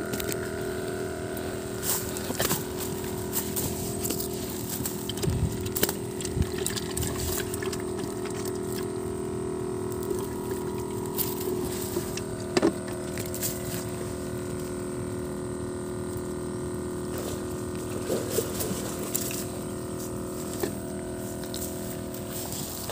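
Steady drone of a motor running at a constant pitch, with scattered short clicks and rustles of handling on top.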